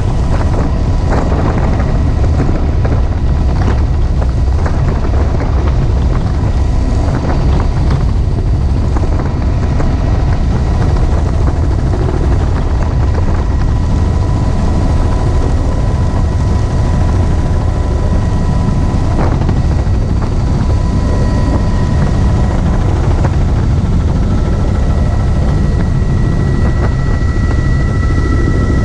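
Helicopter in flight with its doors off: loud, steady rotor and engine noise with wind rushing past the open cabin, and a thin steady whine above it.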